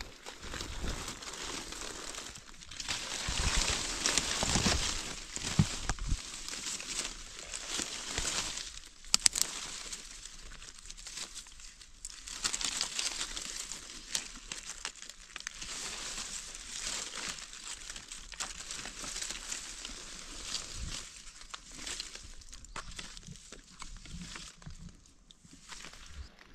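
Dry leaf litter and brush rustling and crackling unevenly as someone pushes through undergrowth and parts the leaves by hand, with a few low bumps about three to six seconds in.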